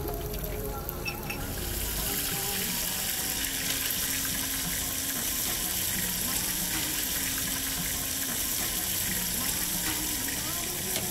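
Tempura deep-frying in hot oil: a steady sizzling hiss that comes in about two seconds in.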